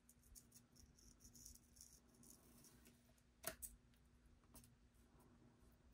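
Near silence with faint handling sounds of small jewelry pliers and metal jump rings: light ticks and rustles, then one sharper click about three and a half seconds in and a smaller one a second later, over a faint steady hum.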